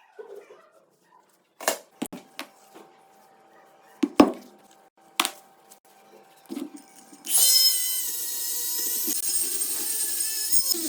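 Several sharp knocks and clicks, the loudest about four seconds in. About seven seconds in, music starts and carries on.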